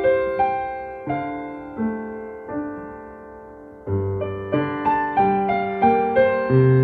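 Soft, slow solo piano music: single notes and gentle chords that ring and fade, thinning out in the middle, then fuller chords with deeper bass notes from about four seconds in.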